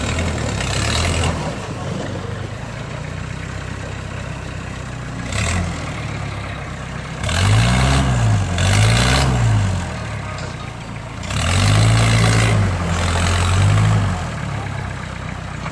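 An off-road jeep's engine runs at a low idle, then is revved up and let fall about four times in the second half, two quick blips followed by a longer, held rev and one more, as it works through a river crossing. Water splashes around the tyres.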